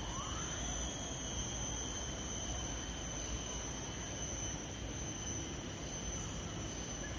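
Steady high-pitched insect whine from the trees, holding one unchanging pitch throughout, over a low steady rumble.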